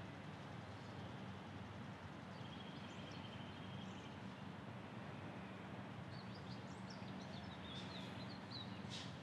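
Faint outdoor ambience: a steady low background noise with songbirds chirping now and then, a short high trill about three seconds in and several quick chirps near the end.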